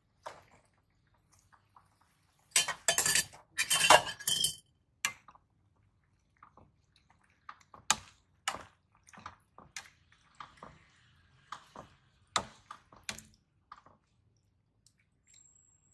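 A metal ladle clinking and knocking against an aluminium cooking pot in a string of sharp separate strikes while the greens are stirred into the soup. About three seconds in come two loud, noisy bursts of handling as the leaves go into the pot.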